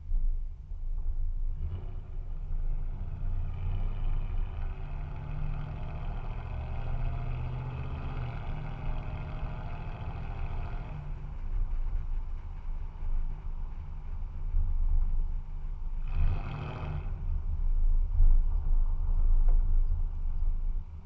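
2014 Toyota Tundra's 4.6-litre V8 through a stainless straight-pipe exhaust that replaces the stock muffler, running while the truck drives. The note grows fuller for several seconds from about two seconds in, then eases, with a short louder burst about sixteen seconds in.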